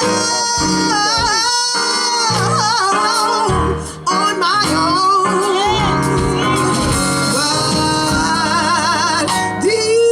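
Gospel group singing with instrumental backing; the voices hold notes with vibrato over steady bass notes.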